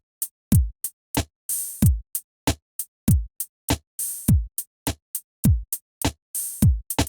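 Korg Triton Extreme VST drum kit playing a steady electronic beat: deep kick drums that drop in pitch, short crisp hits in between, and a longer hissing cymbal about every two and a half seconds.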